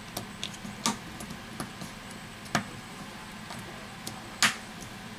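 Plastic clips of a Samsung Galaxy S8's inner housing snapping into place as it is pressed down by hand. It comes as a series of sharp, irregular clicks, with three louder snaps, the loudest near the end.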